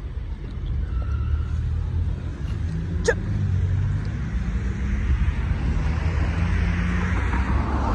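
Steady low outdoor rumble, with one brief sharp high squeak about three seconds in and a rising hiss toward the end.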